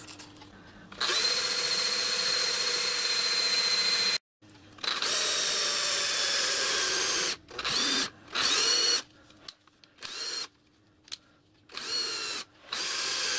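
Electric power tool motor running in a string of loud bursts with a high whine, each starting and stopping abruptly: one run of about three seconds, then several shorter ones, some with the whine rising as the motor spins up.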